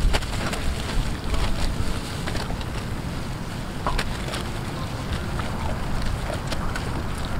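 Wind buffeting the microphone in a steady low rumble, with scattered sharp clicks and rustling from a pack of stray dogs feeding on meat off a plastic sheet.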